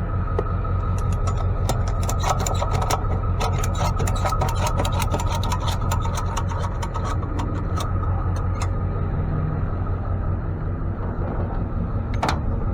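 A vehicle engine running steadily, with a string of short clicks and rattles over it during the first two-thirds.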